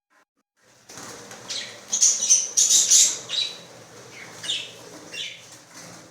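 Pet birds flapping their wings in flight, with high chirps mixed in; the fluttering starts about a second in and is loudest a second or so later.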